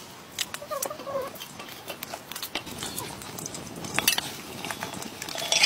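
Clicks and knocks of food being cut with a knife over metal bowls, with a sharp knock about four seconds in. A brief wavering animal call sounds about a second in.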